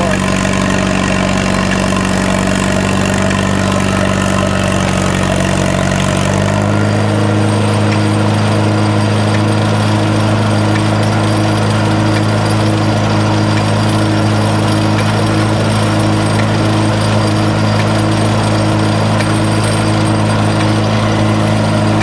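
Allis-Chalmers WD45 tractor engine running steadily at governed speed while it belt-drives a Farquhar sawmill through a long flat belt. About six seconds in, its note steps up slightly.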